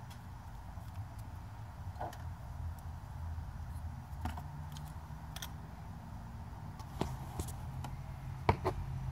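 Hands working behind a car headlight: scattered light clicks and taps of plastic parts being handled, the sharpest pair near the end, over a steady low hum.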